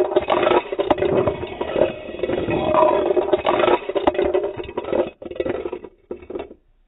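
Close, muffled scraping, rattling and clicking of a paintball magazine being handled and loaded with First Strike rounds, heard from inside the magazine; it dies away about six and a half seconds in.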